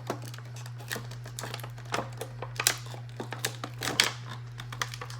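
Plastic packaging crinkling and rustling, with irregular sharp clicks and snaps, as an action figure is worked free of its plastic tray, over a steady low hum.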